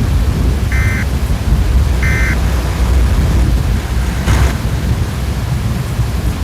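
Severe thunderstorm: heavy rain and wind with a loud, steady low rumble. Two short electronic beeps sound about a second and a half apart in the first half, and a brief hiss comes about two-thirds of the way through.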